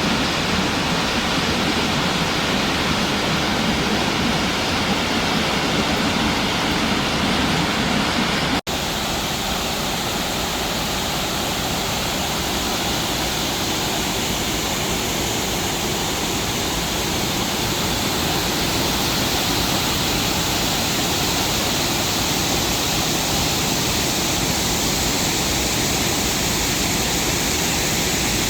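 Burney Falls waterfall rushing, a steady loud roar of falling water. About nine seconds in it breaks off for an instant and resumes slightly thinner and hissier.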